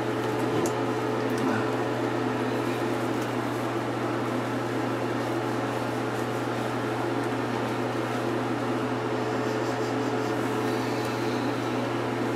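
Steady mechanical hum of a fan-like appliance, unchanging throughout, with faint rubbing of hands working lather into a wet dog's coat.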